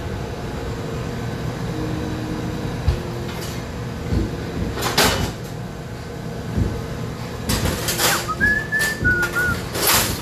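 Steady hum of running commercial kitchen equipment, broken by a few short rustling noises, with a brief whistle of two or three notes a little past the middle.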